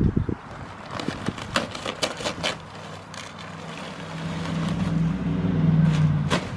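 Loose landscaping stones clattering and plastic bags crinkling as rocks are handled, then a vehicle's engine drone that grows steadily louder over the last three seconds.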